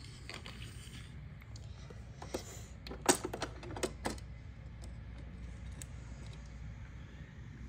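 Small plastic clicks and clatter from handling a miniature toy kitchen, a tiny cutlery drawer and its little utensils. Most of the clicks come about three to four seconds in, over a faint steady low hum.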